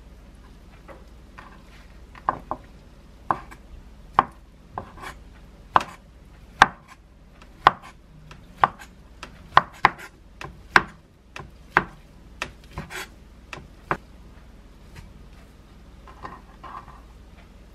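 A kitchen knife slicing through stacked thin egg omelette sheets, the blade knocking on a wooden cutting board about twenty times at an uneven pace of one or two cuts a second. Near the end there is a softer rustle as the cut strips are swept together on the board.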